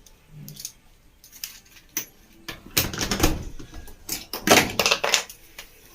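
Clicks, knocks and clattering of small hard objects being handled on a workbench, with louder rattling stretches about three seconds in and again about four and a half seconds in.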